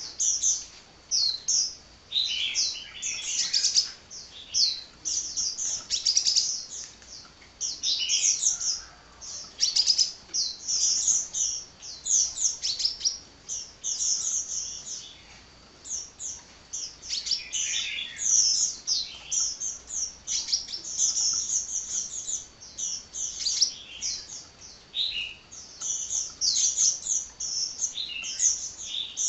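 Sunbird (kolibri) singing a fast, unbroken chatter of high, thin chirps and trills.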